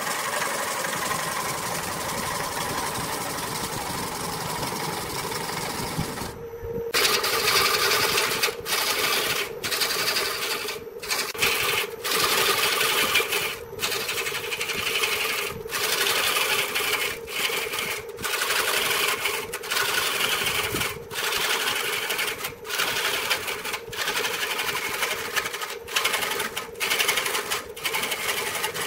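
Wood lathe running with a hand-held turning tool cutting into a spinning wooden blank: a continuous scraping cut over the motor's steady hum. The sound stops completely for a moment about six seconds in, comes back louder, and then drops out for an instant every second or two.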